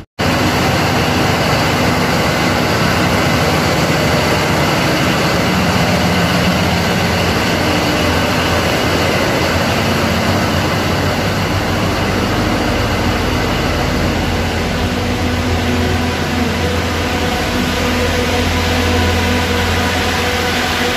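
Loud, steady mechanical drone of running machinery, with a constant low hum under it.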